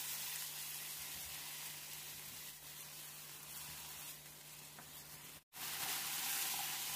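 Pork belly and red curry paste sizzling steadily in a non-stick frying pan as they are stirred with a silicone spatula. The sound cuts out completely for a split second about five and a half seconds in.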